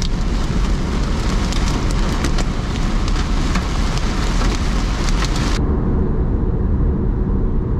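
Inside a moving car, heavy rain pelts the roof and windshield as dense pattering over the hiss of driving. About five and a half seconds in the patter cuts off abruptly, leaving duller, steadier road and engine noise.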